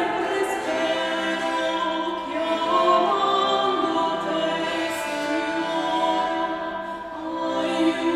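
Early-music ensemble playing: a woman singing over a portative organ and a bowed bassetto, in long sustained chords.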